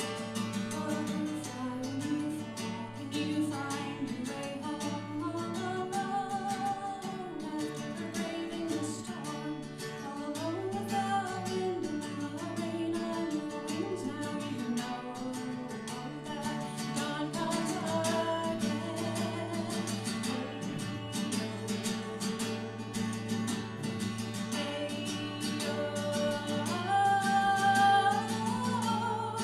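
Acoustic guitar playing steady chords under a sung melody. The melody rises higher and grows louder near the end.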